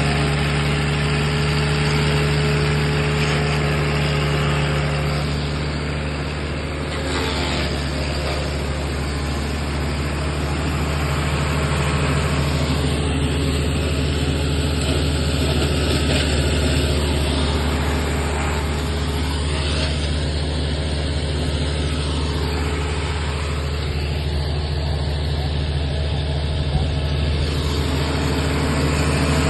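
Wood crusher machine running steadily: a constant low hum with a rough, noisy layer over it that swells and eases a little.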